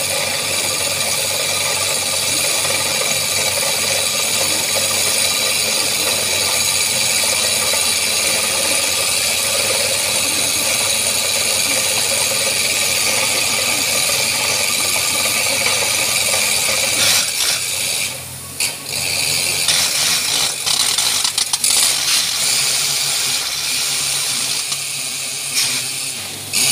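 Borewell drilling rig drilling, a loud steady mechanical din with a strong hiss and high whine. Water and slurry are blown out at the borehole mouth. The noise dips sharply several times in the last third.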